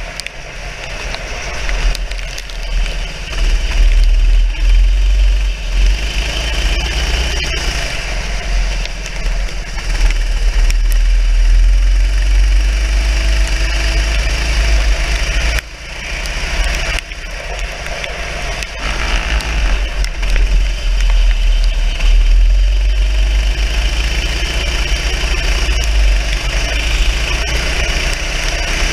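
Racing kart engine heard from an onboard camera while lapping a wet track, its loudness rising and falling with the throttle. About halfway it drops off sharply, then builds again.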